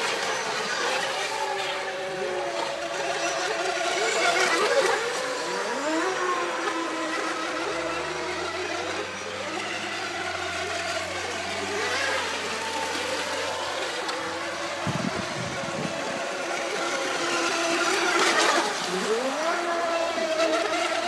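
Several electric RC racing boats running flat out, their motors whining as several tones at once, with the pitch sliding up and down as boats pass close by, over the hiss of spray.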